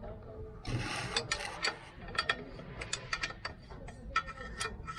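Spanners working the flange nuts on a water tanker's pump: irregular sharp metal clicks and clinks, several a second, with a brief rasping noise about a second in.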